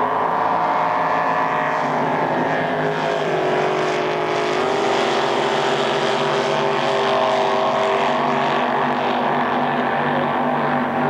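A pack of small racing boats running flat out, their engines heard as several overlapping tones that slowly shift in pitch as the boats sweep past.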